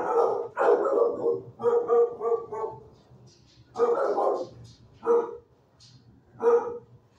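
Dog barking: several loud barks in short bursts with pauses between, including a quick run of barks about two seconds in.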